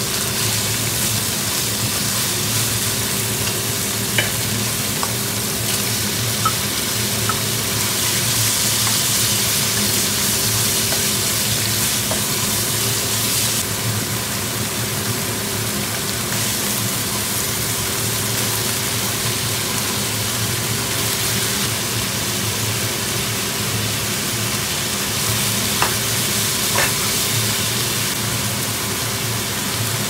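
Sliced meat and vegetables sizzling as they stir-fry in hot oil in a nonstick wok, with a steady frying hiss that grows louder for a few seconds near the middle and again near the end. A few light taps of chopsticks and spatula against the pan.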